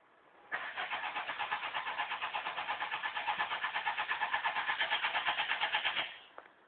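Fiat Uno's engine cranking on the starter motor for about five and a half seconds with a steady beat of about five pulses a second, then cutting off. The engine never catches: a car that won't start.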